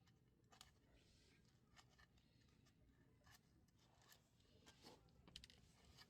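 Near silence with faint, scattered small clicks and soft rubbing: quiet handling noises, a little busier near the end.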